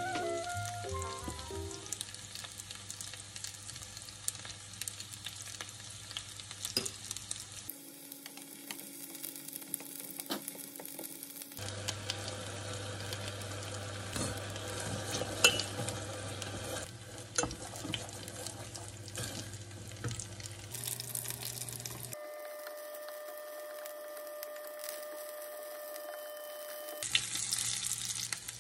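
Sweet-spicy chili sauce bubbling in a small ceramic pot, stirred and scraped with a spoon and then a wooden spatula, with light clicks of the utensils against the pot. The sauce is being cooked until it bubbles and the sugar melts. The sound changes abruptly several times.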